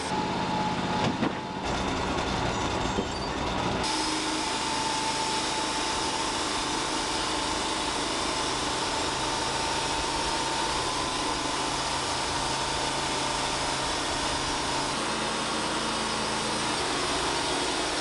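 Wood-Mizer portable bandsaw mill running, its band blade cutting lengthwise through a burnt log: a steady machine drone with a thin, steady whine over it. The sound changes about four seconds in.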